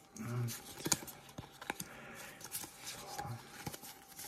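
A stack of Pokémon trading cards handled in the hands, the card stock sliding and flicking with a scatter of small clicks.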